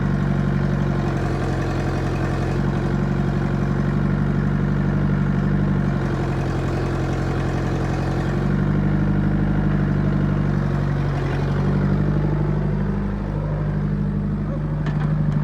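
Hydraulic excavator's diesel engine running steadily, its sound easing off briefly a few times and coming back as the machine is worked.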